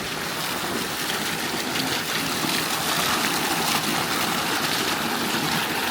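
Hot spring water rushing and bubbling up out of the ground: a steady rush of flowing water that grows a little louder over the first couple of seconds.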